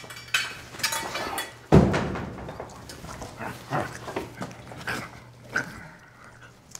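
A door shuts with a heavy thump about two seconds in, followed by a string of short, irregular whimpering cries.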